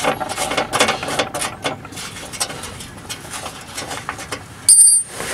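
Small metal clicks and rattles as a speed nut on an exhaust heat-shield stud is turned off by hand, rapid at first and then sparser. Just before the end comes a short, loud, high-pitched ringing sound.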